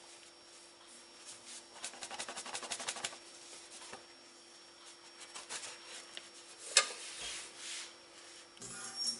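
A metal bread machine pan being tipped and shaken to turn out a freshly baked loaf, with cloth rubbing against it. There is a quick run of rattling about two seconds in and a single sharp knock near seven seconds.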